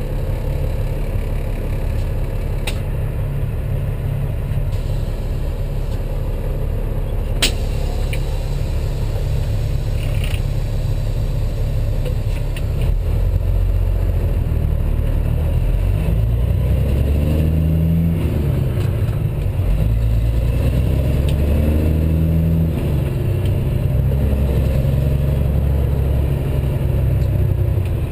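Peterbilt 379 truck's diesel engine heard from inside the cab: a steady deep rumble that grows louder about halfway through as the truck accelerates, its pitch rising and dropping a few times as it pulls up through the gears. A few sharp clicks from the cab are heard along the way.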